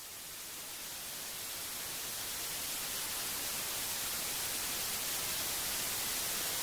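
Steady hiss of analogue television static, mostly high-pitched, swelling over the first few seconds and then holding level.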